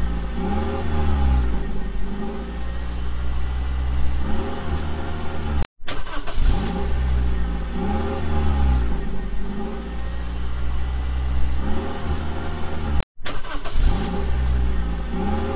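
Car engine sound effect on a loop: a steady engine drone with repeated revs rising and falling in pitch. The same clip cuts off briefly and restarts about every seven seconds, twice.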